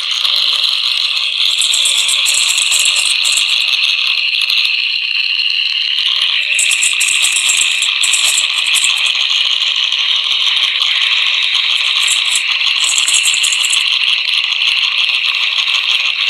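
A steady, harsh rattling buzz with no voice and almost no bass, broken every few seconds by short bursts of high hiss.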